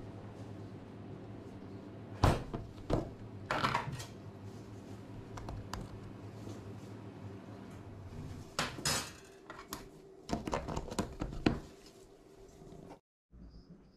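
Spoon and plastic tub of powdered chicken bouillon being handled, scooping powder and tapping it into a ceramic bowl: clusters of sharp clicks and knocks with light scraping, over a steady low hum that fades about two-thirds of the way through.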